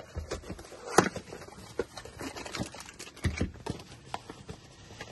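Handling noise from unpacking small parts on a workbench: irregular light clicks and knocks with paper and plastic packaging being handled. The sharpest knock comes about a second in.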